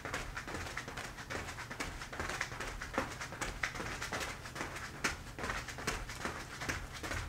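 Soft, quick taps and scuffs of moccasined feet stepping on a foam play mat during heel-toe dance steps, several steps a second in an uneven rhythm.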